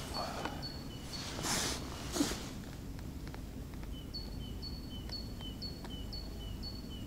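A small bird singing a repeated two-note phrase, a high note then a lower one, about two phrases a second, pausing for a second or so in the middle. Under it is a low steady background rumble, and about two seconds in comes a brief rustle and a light knock.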